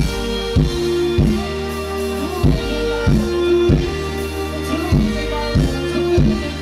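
Live band music with a steady beat: low drum hits about three times every two seconds under held chords.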